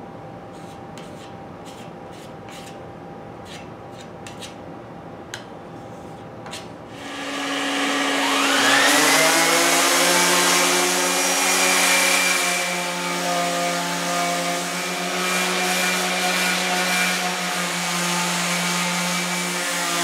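A few faint clicks and taps as glazing putty is worked onto the column, then about seven seconds in a random orbital sander with a shop vacuum hooked to it starts up. The whine rises as the motors spin up, then runs steadily while the sander works over the putty and filler on the mill's cast-iron column.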